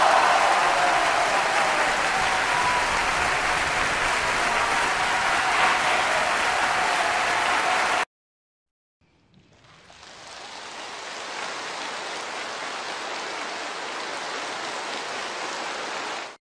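Crowd applause: dense, steady clapping that cuts off abruptly about eight seconds in. After a second of silence, a second, quieter burst of applause fades in and holds steady.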